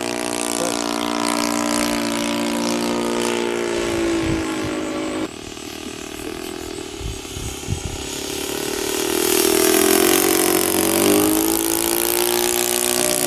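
A model aircraft's YS-120NC four-stroke glow engine running in flight. Its note sags slightly, drops away suddenly about five seconds in, then swells back to full strength from about eight seconds, as the plane passes and turns.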